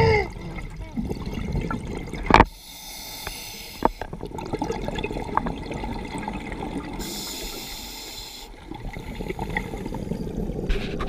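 Scuba diver breathing underwater through a regulator: two drawn-in breaths as high hisses, with exhaled bubbles bubbling in between. A single sharp knock comes about two seconds in.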